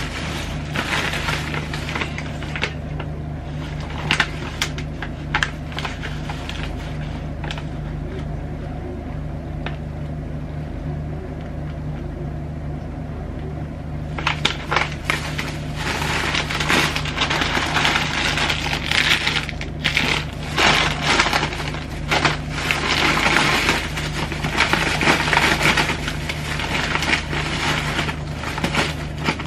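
Plastic bags and packaging rustling and crinkling as they are handled, light at first and much busier in the second half, over a steady low hum.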